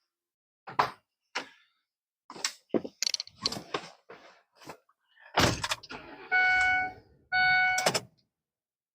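A run of scattered clicks and knocks, then one loud thunk a little past halfway, followed by two long beeps of the same single pitch.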